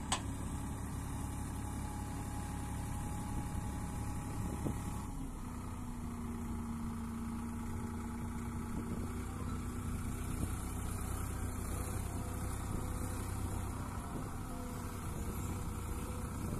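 Sonalika 740 tractor's diesel engine running steadily while its hydraulics raise a tipping trailer bed to dump a load of sand.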